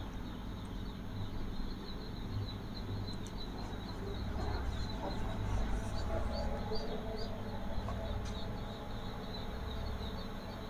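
Small birds chirping over and over, high and thin, over a steady low hum.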